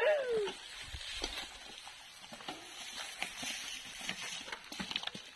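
Mountain bike tyres rolling slowly over dry leaves and twigs on a dirt trail, with a steady patter of small crackles and clicks. At the very start a short, loud sound falls in pitch, like a brief cry.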